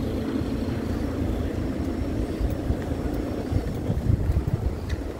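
A car's engine and tyres making a low rumble as it drives slowly past, with wind buffeting the microphone in gusts from about three and a half seconds in.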